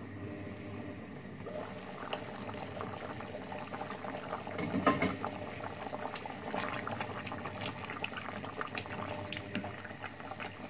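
Meat, potato and carrot stew boiling in a stainless steel pot, bubbling steadily with many small pops. About five seconds in there is a louder knock as the glass lid comes off, and a wooden spoon then stirs through the stew.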